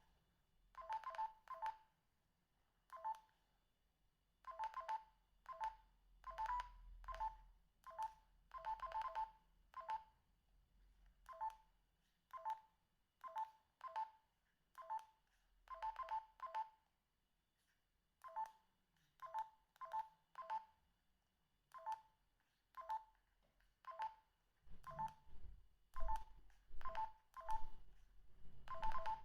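Binatone BB200 mobile phone keypad: short key beeps, each with the click of a pressed button, coming singly or in quick pairs at uneven intervals. Low handling thumps sound under the last few presses.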